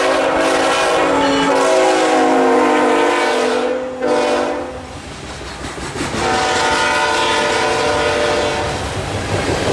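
Air horn of a CSX GE ET44 locomotive sounding a multi-note chord as the locomotive passes, the chord dropping in pitch as it goes by, then a second long blast from about six seconds in. Loaded coal hoppers roll past underneath with a clickety-clack of wheels on rail joints.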